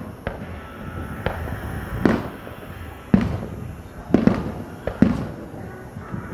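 Aerial fireworks shells bursting: a string of booms and cracks, about eight in six seconds, each trailing off in an echo. The loudest bursts come about two, three, four and five seconds in.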